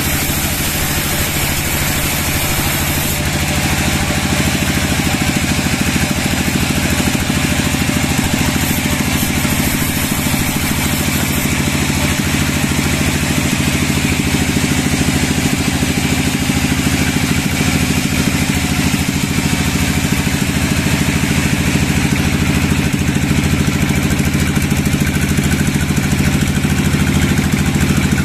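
Sawmill machinery running steadily with a low, even engine-like drone, getting a little louder about four seconds in.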